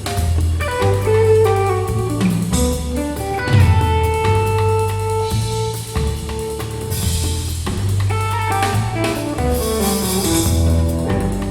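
Instrumental music with a steady bass line, drums and a plucked guitar melody, played back through a bookshelf hi-fi speaker.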